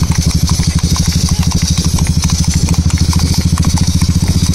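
Motorcycle engine running at a steady, fast low throb, with faint light ticks above it.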